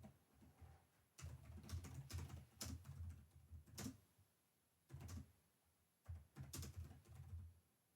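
Quiet typing on a computer keyboard: two runs of rapid key clicks with soft low thuds, separated by a pause of about a second.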